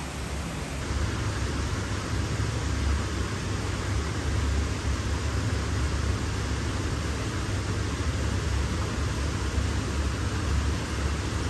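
Steady rushing background noise of an aquarium exhibit hall, an even hiss over a deep, fluctuating rumble that grows louder about a second in.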